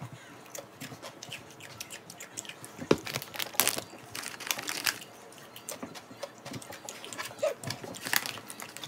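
Close-up crunching and chewing of a crisp snack, irregular crunches and mouth clicks with a few louder bites.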